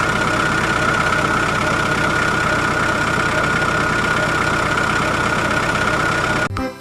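An engine running steadily with a fast even pulse and a high steady whine, cutting off abruptly about six and a half seconds in.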